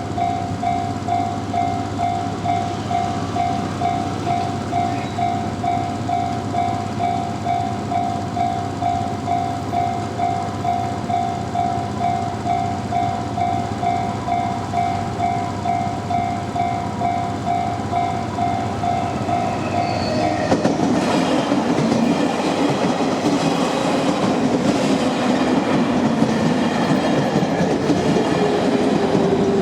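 Japanese level-crossing warning bell ringing "kan-kan" in rapid, evenly spaced strikes of one tone. About twenty seconds in it gives way to the louder noise of a train running past over the crossing.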